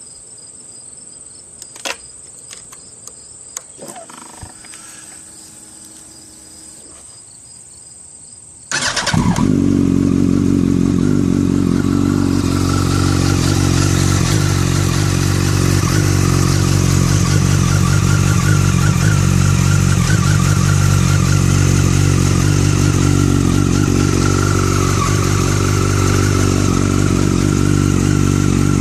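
Crickets chirping steadily with a few faint clicks, then about nine seconds in a 2008 Yamaha YZF-R1's inline-four engine starts abruptly and runs at a steady cold idle.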